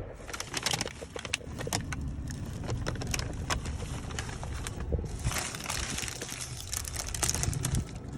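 Paper bag and food packaging crinkling and rustling in irregular crackles, over a low steady rumble.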